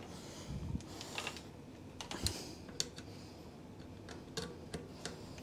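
Light, irregular clicks and taps of hand tools and metal parts at a mountain bike's rear dropout and axle hardware, about eight of them spaced unevenly.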